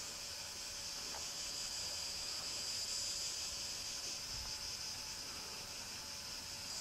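A chorus of insects making a steady high buzz that swells slightly midway and then eases.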